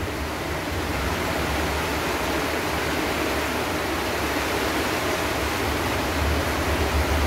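Steady hiss of heavy rain, with a low hum underneath.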